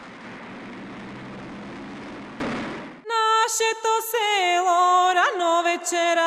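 A steady noise for about two seconds, swelling briefly, then, about three seconds in, a woman's voice starts singing a folk-style melody with little or no accompaniment, sliding and bending between notes.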